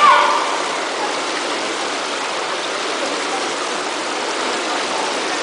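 Steady wash of indoor swimming-pool hall ambience, with a brief tone right at the start.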